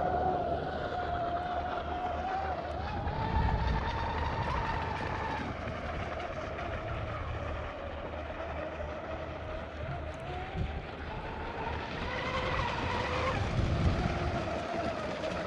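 Black Jack 42 RC boat's electric motor and propeller whining as it runs on the water, the pitch rising and falling with throttle over a rushing noise.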